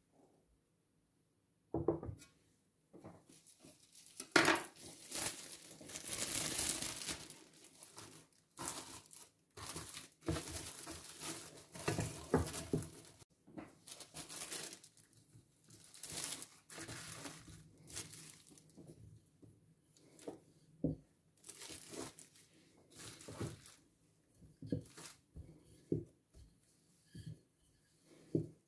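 Plastic cling film crinkling and tearing as it is pulled and stretched over a baking pan, in dense rustling bursts after a brief silence. Shorter, scattered rustles and light knocks follow.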